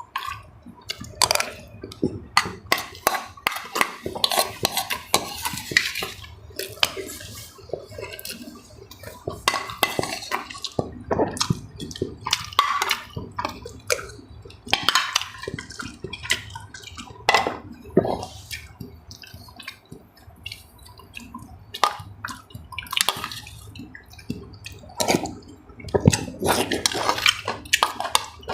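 Eating a meal up close: utensils clinking against bowls and dishes, with wet slurping and chewing sounds in irregular short bursts.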